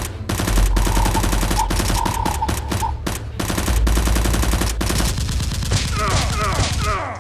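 Rapid bursts of automatic gunfire, many shots a second, over a steady low bass bed. About five seconds in the firing stops and short rising bird chirps follow.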